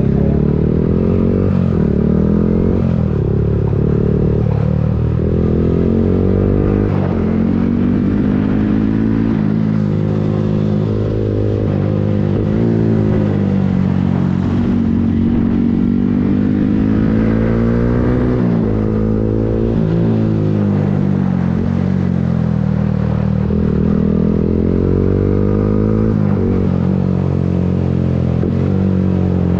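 Yamaha MT-15's single-cylinder engine through an Akrapovic full-system exhaust, heard on board while riding. It revs up and drops back again and again as the bike shifts and slows through the bends, with steady wind noise underneath.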